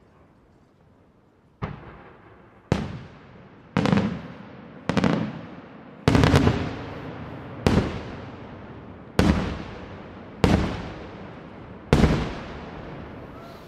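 Aerial firework shells bursting in the sky one after another: about nine sharp booms, one every second or so, starting a little over a second in. Each boom trails off in a rolling echo.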